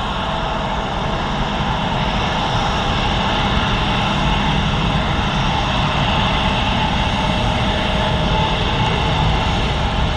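Jet engines of a twin-engine widebody airliner at takeoff thrust, a loud steady jet noise through the takeoff roll and lift-off, mixed with the engines of a business jet taxiing close by.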